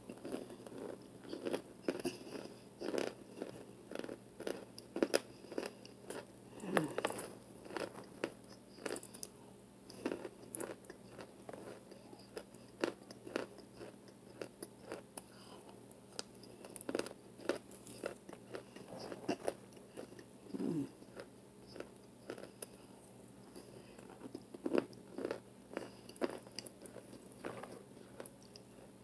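Close-up biting and chewing of hard baked cornstarch chunks: irregular, sharp crunches and crackles, with gaps between bites.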